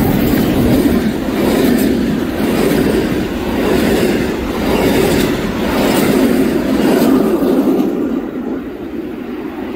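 Heritage passenger train running by: a steady rumble with clattering wheels and a few sharp clanks, fading away over the last couple of seconds as it recedes.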